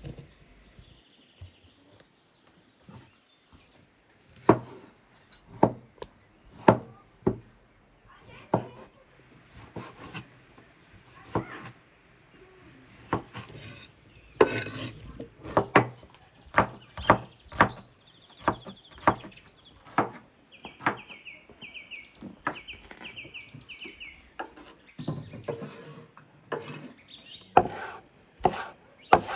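A kitchen knife knocking and scraping on a wooden cutting board as diced cucumber and tomato are slid off into a glass bowl, with irregular single taps. A bird chirps a run of short high notes around the middle, and near the end the knife chops quickly through a bunch of fresh herbs on the board.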